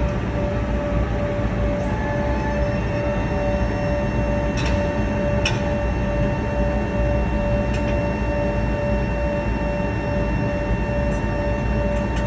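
Airbus A320's jet engines running at idle: a steady drone with constant whining tones, and two short clicks near the middle. The engines are left running at the gate because the APU is inoperative and ground power is not yet connected.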